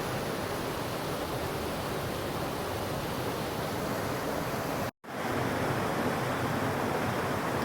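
Steady rush of creek water, an even hiss, broken by a moment of dead silence about five seconds in.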